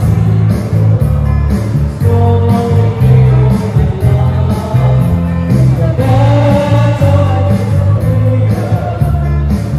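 Live praise band playing a worship song, the electric bass guitar loud and close, with acoustic guitars, keyboard and singers over a steady beat.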